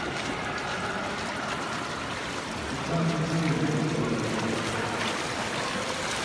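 Pool water sloshing and splashing, a steady watery wash, as a monofin swimmer glides in and reaches the pool wall. For a couple of seconds in the middle, a low held voice-like sound sits over it.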